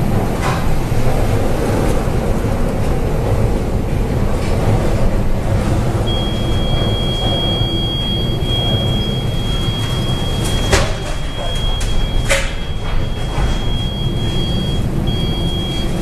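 Storm wind and heavy sea heard from a bulk carrier's bridge in a hurricane, a loud steady rumbling noise. About six seconds in, a thin, steady high-pitched tone starts and holds. Two sharp knocks come a second and a half apart in the latter half.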